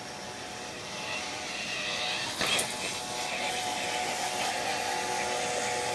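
A six-wheel-drive robot's electric drive motors whine steadily, growing louder about a second in as it comes closer. A brief knock sounds about two and a half seconds in.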